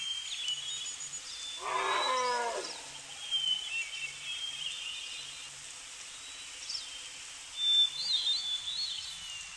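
A large wild animal's call about two seconds in, one drawn-out cry falling in pitch, over a background of birds chirping.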